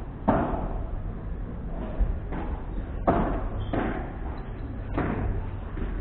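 Padel ball being struck by paddles and bouncing during a rally, about five sharp pops a second or so apart, each ringing briefly off the court's glass walls.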